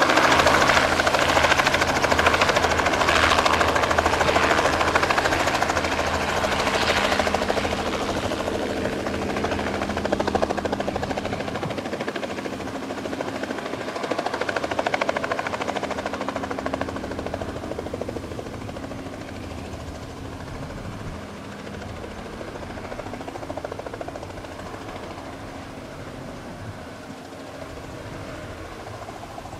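Robinson R44 II helicopter in a low hover, its six-cylinder Lycoming piston engine and two-blade main rotor running steadily. The sound fades gradually as the helicopter hover-taxis away.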